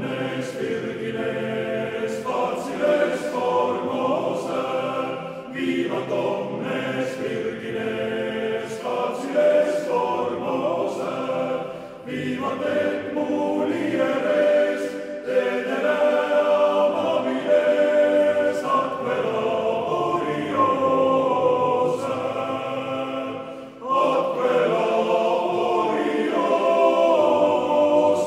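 Men's choir singing an Estonian student song, phrase by phrase, with brief pauses about twelve and twenty-four seconds in.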